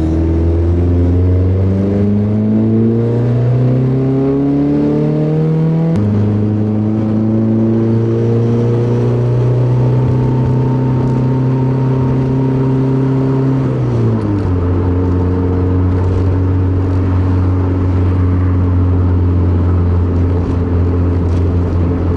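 Turbocharged SR20DET inline-four with a straight-piped exhaust in a Nissan 240SX, heard from inside the car. The engine climbs in pitch under acceleration and drops sharply at a gear change about six seconds in. It pulls up again and settles to a steady cruise, then falls to a lower steady note at another shift around fourteen seconds in.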